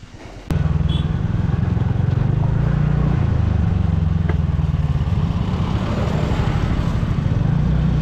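Scooter engine running as it is ridden, a steady low drone that starts suddenly about half a second in.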